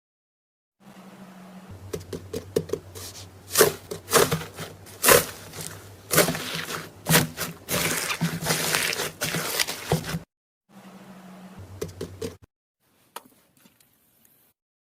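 Slime being squeezed and pressed by hand, giving a dense run of crackling pops and clicks over a low hum. It breaks off briefly, returns for a moment, then thins to a few last clicks.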